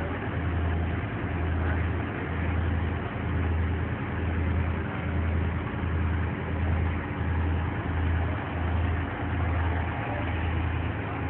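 A boat's engine running steadily: a low, even drone that throbs a little more than once a second.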